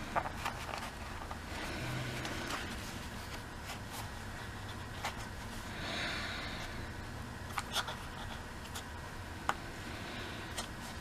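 Small sharp clicks and a brief rustle from a paper clip being worked through a cardboard carrying box while the hole is searched for, over a low steady room hum.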